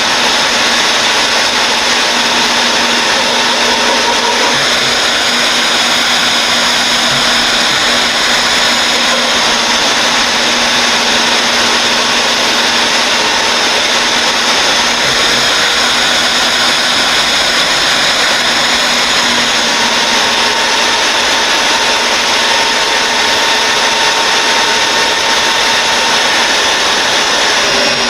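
Electric drill running a 1.25-inch annular cutter, boring holes through 1/2-inch steel plate: a loud, steady motor noise with a constant hum.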